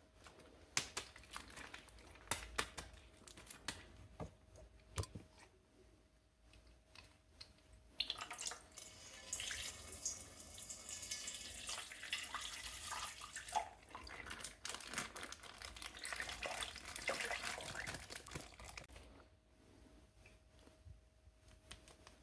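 Faint handling sounds: a few light clicks and taps, then from about eight seconds in a stretch of faint splashing and trickling water with plastic crinkling, which dies away a few seconds before the end.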